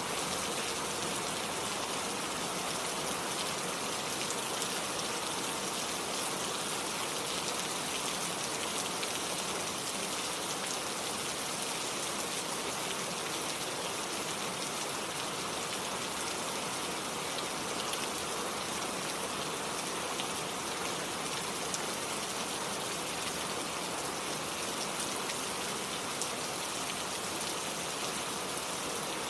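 Steady rain falling, with the continuous rush of a flowing stream beneath it.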